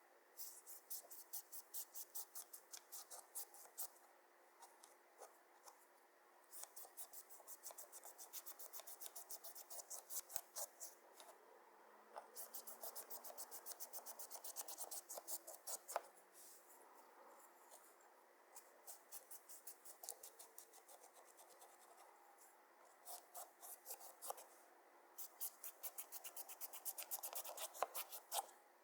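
Quiet runs of fast, sharp clicks and scratches from fingernails handling makeup and slime, several a second, stopping and starting every few seconds.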